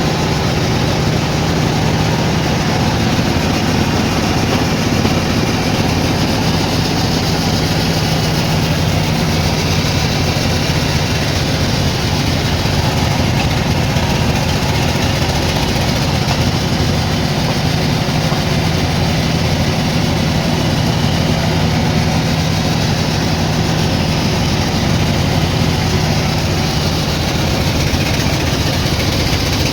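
Sawmill machinery running steadily with an unchanging low engine hum.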